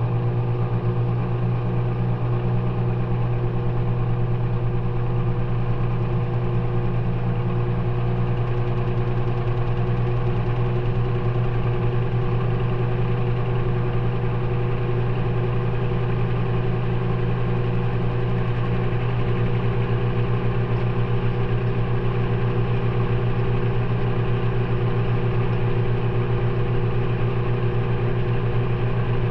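Maytag front-loading washing machine running its delicate cycle, heard from inside the drum: a steady machine hum with a strong low tone that holds unchanged throughout.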